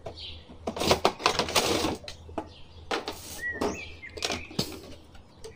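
Crinkling and crackling of a clear plastic blister tray and cardboard toy box being handled and opened, densest about one to two seconds in, with a few sharp clicks later.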